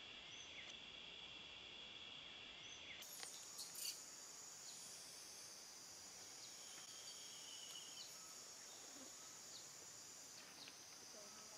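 Faint, steady chorus of insects, a high even buzz that jumps to a higher pitch about three seconds in. A few faint clicks and short chirps sit over it.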